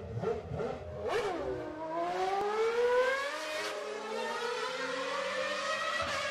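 Engine revving up, its pitch wavering at first and then climbing steadily, with a short dip a little past halfway before it climbs slowly again.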